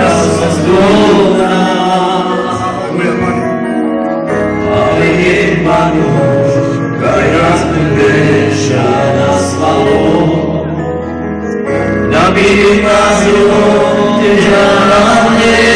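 Men singing a gospel worship song into microphones over amplified backing music with a steady bass line, loud through the hall's PA speakers.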